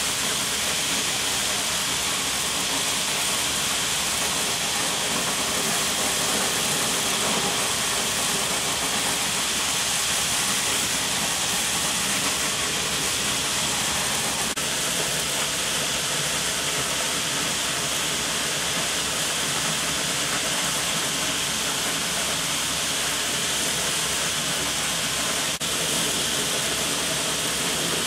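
Grout spray nozzle on a hose, hissing steadily as grout is sprayed onto a rock face.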